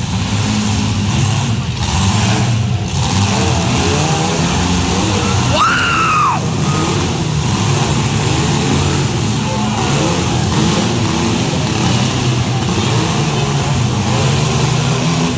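Engines of several compact demolition derby cars running and revving together, with a brief high squeal about six seconds in.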